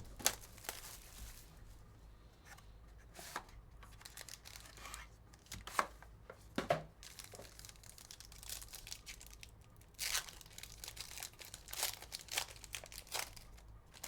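Packaging of sealed trading card boxes being torn open and crinkled by hand, in irregular short rips and rustles that come thickest near the end.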